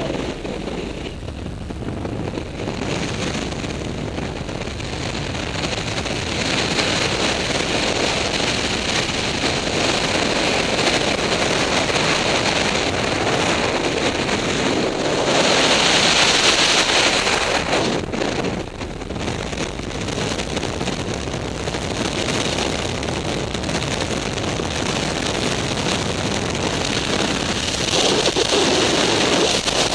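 Freefall wind rushing over a skydiver's helmet-mounted camera microphone: a loud, steady rush of air noise that swells about halfway through and again near the end.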